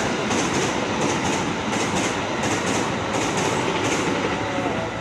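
Argo Parahyangan express train's passenger coaches passing at speed, a loud steady rush with a rhythmic clatter of wheels over the rail joints. The noise eases off right at the end as the last coach goes by.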